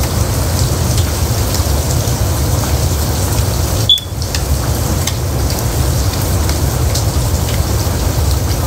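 Steady rushing noise with faint scattered crackles. About four seconds in, one short high beep.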